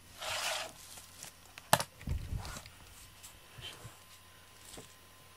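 Short rustling noise, then a sharp click and a few soft thumps, as a cat gets up and shifts about on a wooden floor among cables.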